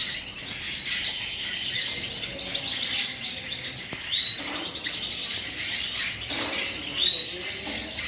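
Many caged canaries and small finches chirping and singing together, a dense chatter with quick runs of repeated high notes.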